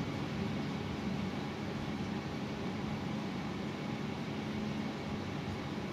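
Steady low hum with a hiss underneath, from a running motor in the room, unchanging throughout.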